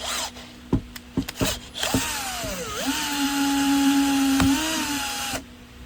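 Bosch GSB 120 drill in hammer mode at speed 1, driving a rivet nut drill adapter to pull up an M10 rivet nut. A few clicks come first. Then the motor runs for about three and a half seconds, its pitch sagging as it takes the load and then holding steady, before it stops suddenly.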